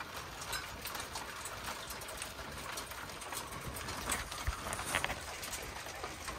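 Sleet, small ice pellets mixed with rain, pattering steadily on the cabin's roof and walls, heard from inside as a dense, faint ticking. A couple of louder clicks come about four and five seconds in.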